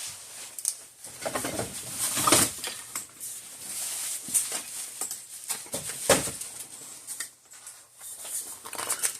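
Rummaging through supplies in search of a can of contact cleaner: irregular rustling and knocking as objects are moved and shifted around.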